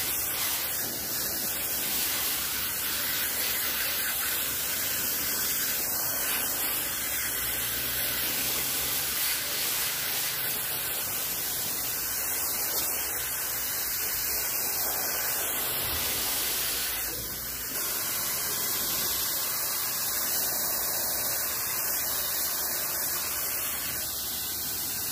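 A hand-held nozzle sprays a steady water jet against the aluminium fins of a window air conditioner's condenser coil, hissing evenly as it rinses out dirt and foaming coil cleaner. The hiss dips briefly about two-thirds of the way through.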